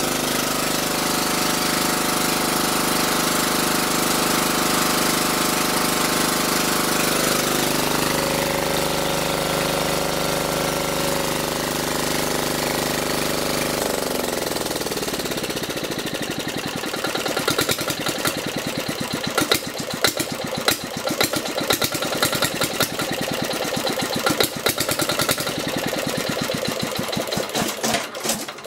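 Nigata NGT5 diesel generator engine running steadily with no exhaust fitted, then shut off about halfway through and winding down to a stop. After that come loud, irregular clicks and knocks.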